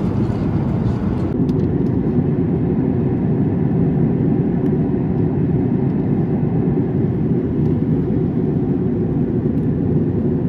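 Steady low rushing cabin noise of a Boeing 737 MAX 9 airliner in descent, engine and airflow noise heard from a passenger seat. The higher hiss drops away about a second in.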